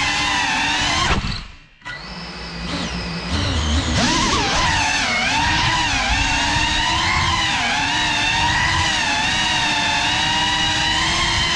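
Brushless motors and ducted propellers of a GEPRC Cinelog 35 cinewhoop FPV drone whining, the pitch rising and falling with the throttle. About a second in, the sound falls away almost to nothing for under a second, then returns and builds back up.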